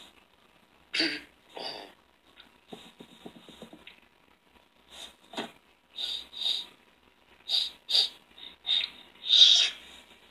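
Cartoon sound effects of a dog sniffing and licking: a string of about a dozen short bursts, with a quick rattle of small sounds about three seconds in. It plays through laptop speakers and is picked up off the room.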